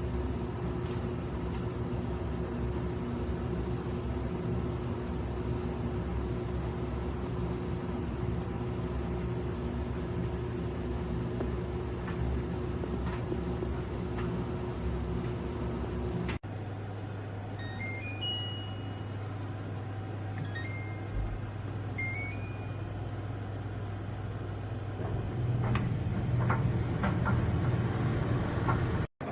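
Small portable clothes dryer running with a steady motor hum. After a cut, a different steady hum carries a few short series of high electronic beeps stepping downward in pitch.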